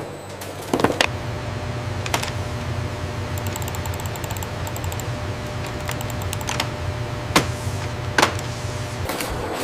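A machine running with a steady low hum, with scattered sharp clicks and knocks and a brief stretch of fast, light ticking.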